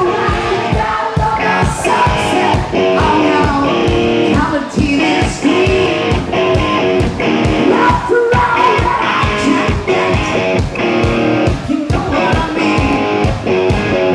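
Live rock band playing: electric guitar and singing over a steady, driving drum beat.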